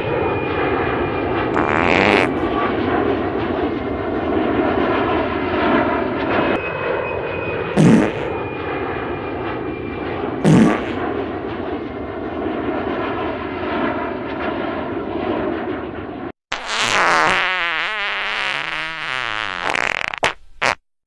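Fart sound effects over a steady engine-like rumble: three short farts a few seconds apart, then the rumble cuts off and a long, wavering fart runs for about three and a half seconds, followed by two quick blips.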